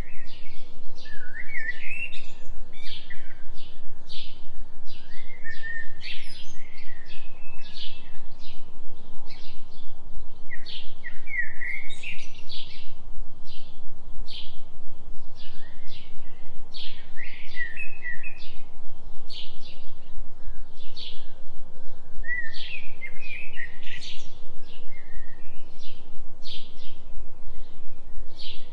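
Several birds chirping and singing, with quick repeated chirps and a warbled song phrase every few seconds, over a steady low binaural tone that throbs about three times a second.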